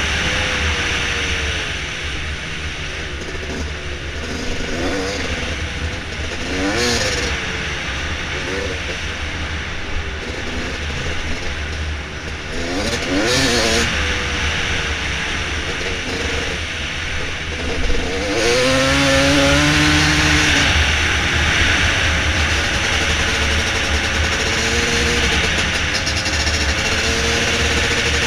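Dirt bike engine revving up and down while riding, its pitch rising and falling repeatedly with the throttle. It gets louder and noisier about two-thirds of the way through.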